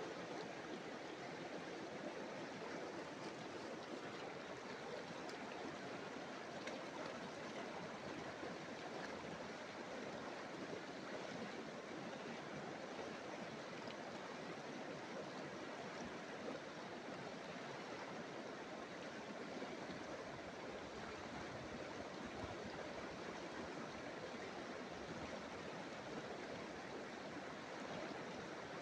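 Steady rush of a fast-flowing river running in choppy standing waves over the shallows.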